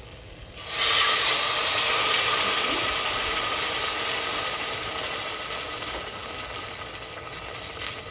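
Cold water poured into a stainless steel pot of red lentils, onion, garlic and spices frying in hot olive oil sets off a sudden loud sizzle about half a second in, which slowly dies down.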